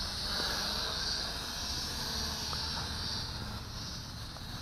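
Steady buzz of a small toy camera quadcopter's propellers in flight, heard over a constant high insect trill.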